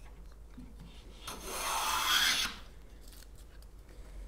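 Restored Stanley Bailey No. 5 hand plane taking one stroke along a piece of scrap wood, a swishing shave of just over a second that starts about a second in, with a few faint taps before it. The blade is set evenly and cutting shavings as it should.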